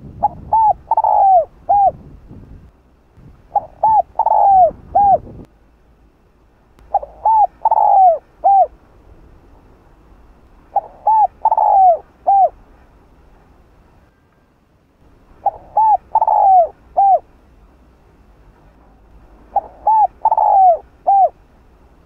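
Spotted dove cooing its song: six phrases about every three and a half seconds, each of roughly four notes, two short ones, a longer louder one that falls away, and a short closing note. A low rumble sits under the first two phrases.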